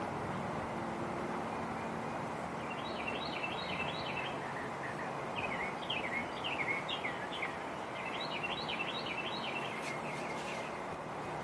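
Songbirds singing in three short bursts of quick, repeated falling chirps, the first about three seconds in, over a steady outdoor rush of wind.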